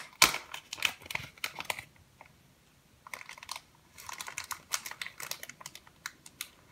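Crinkly packaging being handled and unwrapped by hand, quick crackling rustles in two spells with a short pause about two seconds in.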